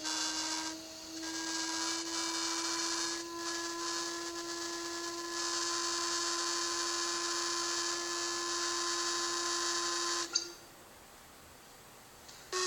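A sustained buzzing drone on one pitch, rich in overtones, rising very slightly and stopping suddenly about ten seconds in, followed by low hiss.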